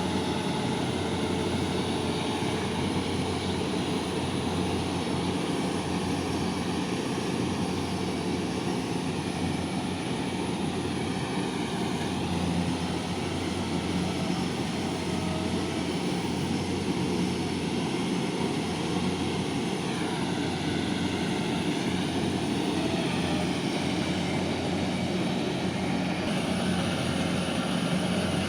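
Kubota DC68G paddy combine harvester's diesel engine and threshing machinery running steadily under load as it harvests, an even drone with a low hum.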